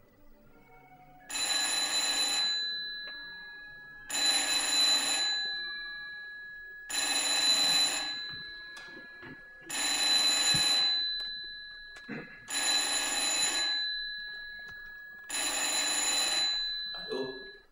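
Electric bell ringing six times, each ring about a second long and repeating roughly every three seconds. Each ring leaves a high ringing tone that fades away.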